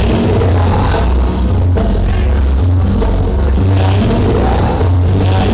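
Loud dance music played through a sonidero sound system, with a heavy repeating bass beat.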